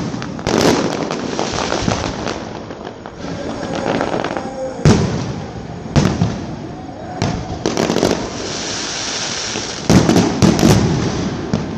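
Fireworks display: shells bursting with sharp bangs at irregular intervals over continuous crackling, with a quick run of several bangs near the end.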